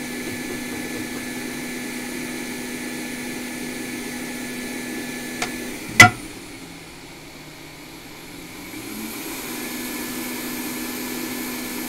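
Steady rush of air from a blower drying alcohol off a laptop logic board, over a constant hum. A sharp click comes about six seconds in. After it the airflow drops away for a few seconds, then builds back up.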